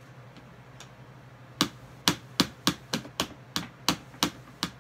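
Hard plastic toy playset pieces being handled, giving a run of about ten sharp clicks, roughly three a second, starting a little over a second in.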